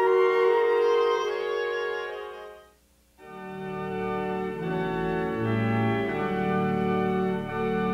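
Background organ music with held chords; it fades out about two and a half seconds in, breaks off briefly, and a new passage of sustained organ chords with lower bass notes begins.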